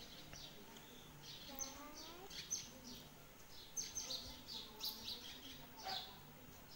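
Faint, rapid high chirps of small birds, repeating every fraction of a second from about a second and a half in.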